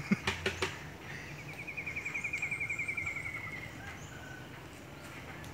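A few sharp clicks at the start, then a bird's rapid trill: a run of quick, even notes, about a dozen a second, falling slightly in pitch over about two and a half seconds.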